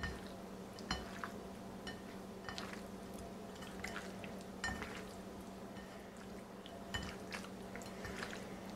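Hand mixing raw peeled shrimp coated in dry spices and hot sauce on a plate: faint wet squelches and small irregular clicks. A steady low hum runs underneath.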